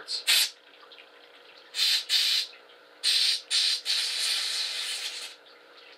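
CO2 bike-pump inflator hissing as it fires short blasts of gas into the breech of a .50 calibre muzzleloader, blowing burnt powder fouling out of the barrel. One blast comes just after the start, two come around two seconds in, then two quick ones run into a longer blast of about a second and a half.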